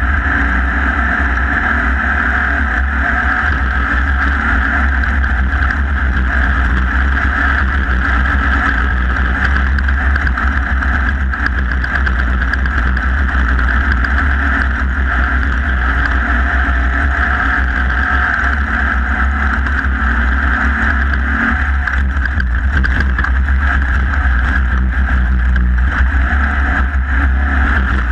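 Off-road race vehicle's engine running steadily, heard from on board, loud and unbroken.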